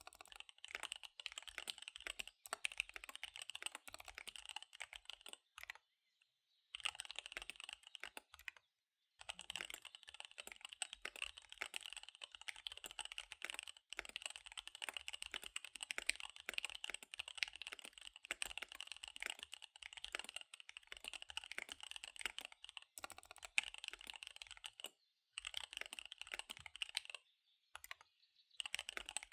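Fast typing on a KBD75 V3 mechanical keyboard with SP-Star Dark Magic Girl tactile switches and DSA keycaps: a rapid run of key clacks that stops briefly a few times, the longest pause near the end.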